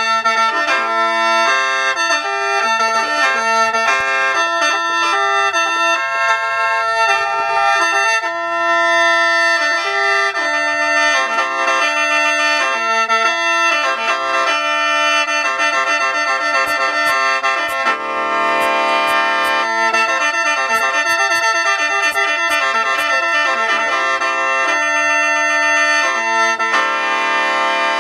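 Instrumental background music: a held drone of several steady tones under a stepping melody.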